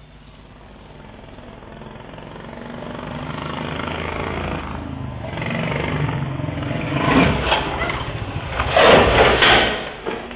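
Royal Enfield Bullet motorcycle drawing near, its exhaust steadily louder, then two very loud stretches of sharp firecracker-like popping before it drops away near the end. The popping is the modified-exhaust 'patakha' sound.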